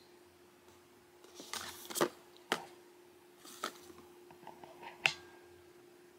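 Handling sounds of boxed baby items in cardboard and plastic packaging being picked up and moved: several sharp clicks and short rustles, over a faint steady hum.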